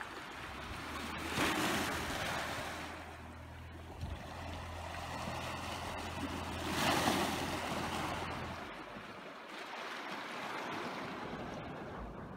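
Small sea waves washing in over a beach of round pebbles, surging twice about five seconds apart. A low steady hum sits underneath and stops a little before the end.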